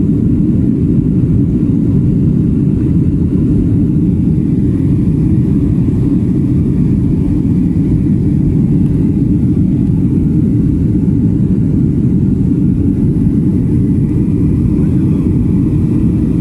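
Jet airliner cabin noise in flight, heard from a window seat: a loud, steady low rumble of engines and rushing air that does not change.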